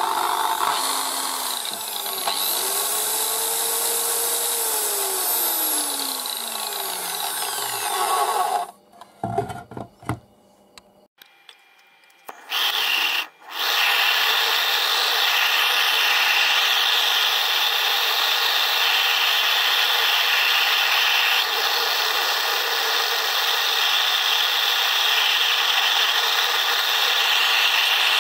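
A salvaged blender motor spinning a metal cup, its whine rising in pitch and then falling away as it winds down. After a short break, a gas torch flame hisses steadily while it heats a metal disc.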